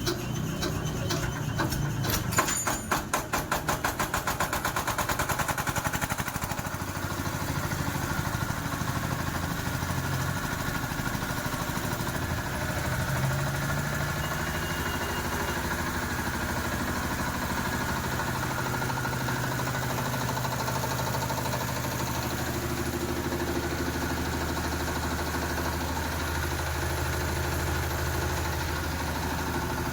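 Diesel generator engine starting: a run of rapid, regular pulses for a few seconds, then it settles into steady running about six seconds in.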